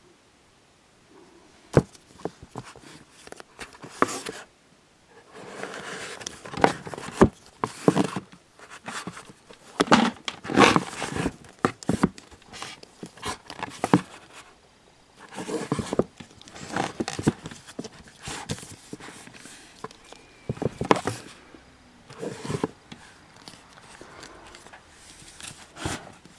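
Paperback manga volumes being handled on a bookshelf: irregular rustling, sliding and sharp knocks in short clusters as books are pulled and pushed against each other, with quiet gaps between.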